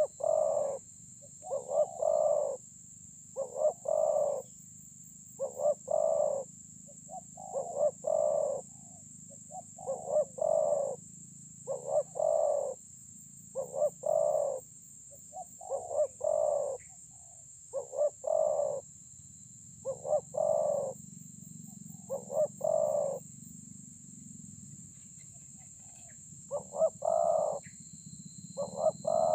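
Spotted dove cooing: its two- to three-note coo repeated about every two seconds, with a pause of a few seconds late on.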